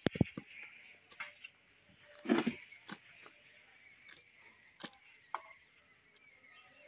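Scattered light knocks and taps, about half a dozen, as baking stuffed dough balls are poked and turned in a bed of hot ash, over a faint steady hiss. The loudest knocks come right at the start and about two and a half seconds in.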